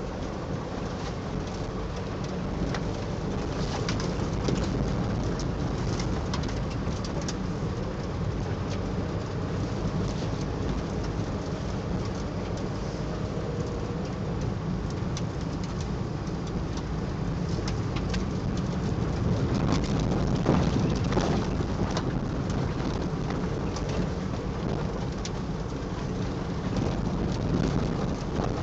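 Steady low rumble of car road and engine noise heard inside the cabin, with scattered light crackles of the shiny PVC rain suit's fabric.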